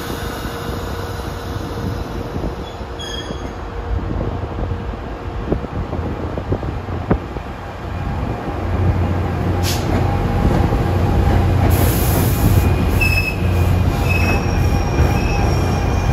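Commuter train moving over the terminal trackwork. A low rumble grows louder about halfway through, with a few clanks and short, high wheel squeals.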